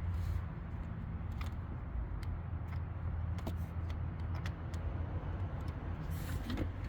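A steady low hum, with scattered small clicks and rustles of a spark plug wire and its boot being handled under a truck's hood.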